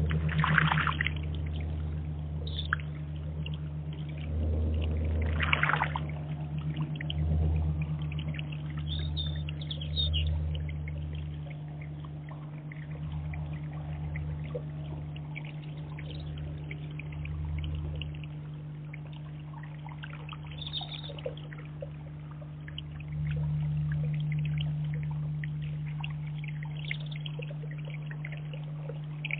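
Water trickling and splashing in a small garden pond's rock cascade, in a continuous crackling patter, over a steady low hum.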